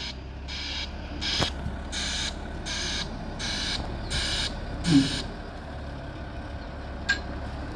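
Wheel loader's reversing alarm beeping evenly, about three beeps every two seconds, over the low steady running of its diesel engine. The beeping stops about five seconds in, just after a brief louder sound. A sharp click comes near the end.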